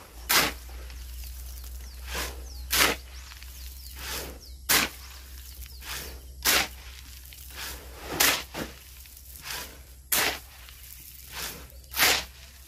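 A hand tool working a cement mix in a steady rhythm: a softer stroke followed by a louder swishing scrape, repeating about every two seconds.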